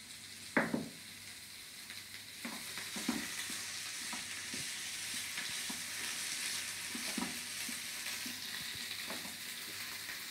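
Boiled potato cubes frying in oil in a small pan, with a steady sizzle and a spatula stirring them, knocking against the pan a few times.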